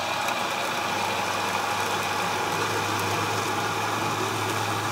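Oster countertop blender running at a steady speed, puréeing canned beans into a liquid.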